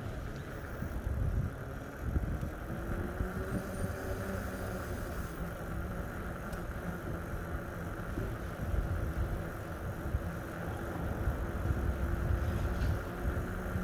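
Steady low rumble of a slowly moving vehicle, with a faint even motor hum over it.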